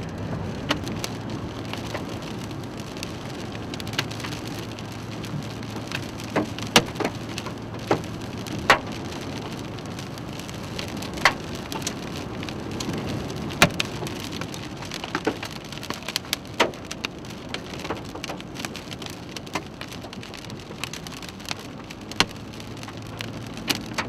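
Rain pelting a moving car, with irregular sharp knocks of hailstones striking the body and windshield over a low steady hum.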